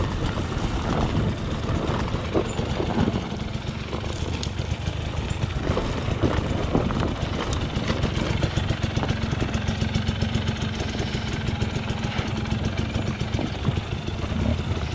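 Enduro motorcycle engine running through off-road riding, its note settling into a steady pitch in the second half.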